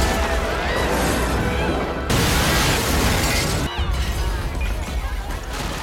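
Film soundtrack of monster destruction: loud crashing and shattering over a deep, steady rumble, with music under it. A fresh loud crash hits about two seconds in.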